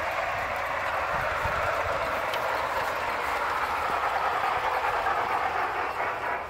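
LGB Mogul G-scale model locomotive and its two coaches running on the track: a steady rolling noise of wheels and gear drive, with no clear rhythm.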